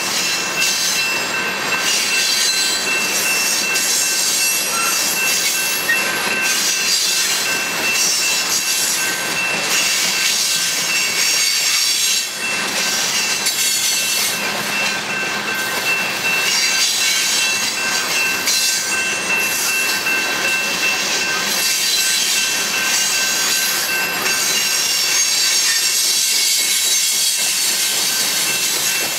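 Covered hopper cars of a freight train rolling past on steel wheels and rail, a steady loud clatter and rumble with a thin, steady high-pitched tone over it.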